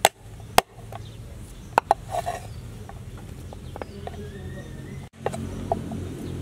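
Cleaver chopping sliced ginger on a wooden chopping board: four sharp chops in the first two seconds, then only small faint taps and scraping as the pieces are gathered.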